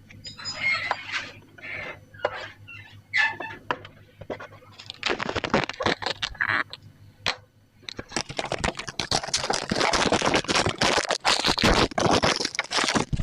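Packaging of a colour pencil set being handled and opened: rustling and scraping that starts about five seconds in and runs almost without a break from about eight seconds. Before that, faint short calls or voices in the background.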